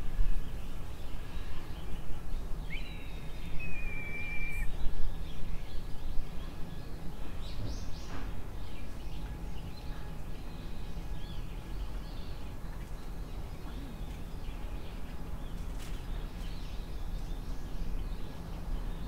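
Outdoor ambience: a steady low background rumble with birds calling now and then, one clear whistled call a few seconds in.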